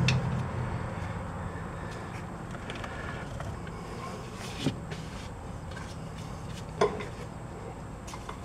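A few isolated light knocks and clicks of metal parts and tools being handled at the strut-to-knuckle bolts. There is a click at the start, and the sharpest knock comes about two-thirds of the way through.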